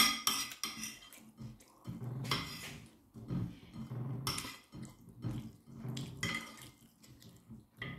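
Metal spoon clinking and scraping on a ceramic plate as fried rice is scooped up, several times, with chewing sounds between.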